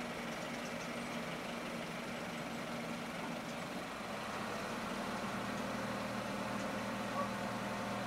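Light truck's engine running steadily, then rising a little about five seconds in as the truck pulls away.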